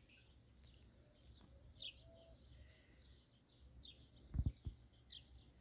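Birds chirping faintly: short, high, falling chirps repeating about once a second, with a brief low thump about four and a half seconds in.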